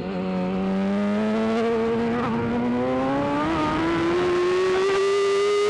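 BMW S1000RR inline-four race engine accelerating hard under full throttle, its pitch rising steadily in one long pull through a gear, heard on-board the bike.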